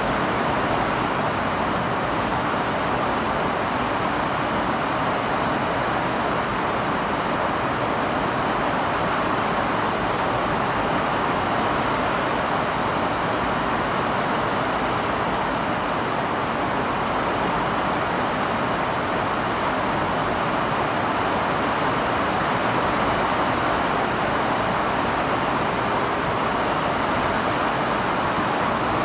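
Steady rainfall, an even hiss with no single drops or thunder standing out.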